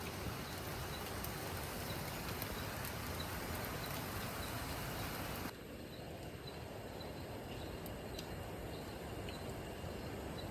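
Steady rain falling in tropical rainforest, with a faint high-pitched call repeating about twice a second. About halfway through the rain turns quieter and duller.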